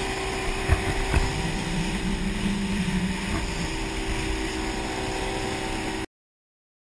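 Center-console fishing boat running fast through rough seas: a steady engine drone mixed with rushing wind and water. Two sharp knocks come about a second in. The sound cuts off abruptly near the end.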